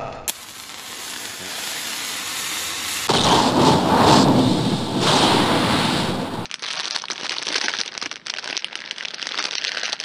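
Edited transformation sound effect for a fan-made Kamen Rider henshin: a rush of noise swells for about three seconds, turns into a louder rush with a deep low end, and about six and a half seconds in gives way to dense crackling.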